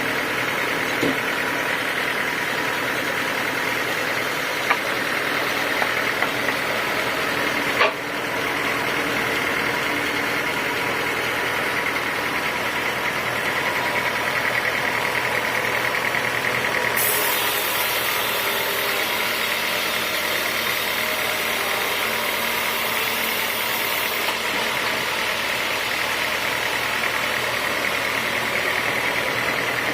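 Sawmill machinery running steadily, with a sharp click about eight seconds in and a high hiss that joins for about seven seconds past the middle.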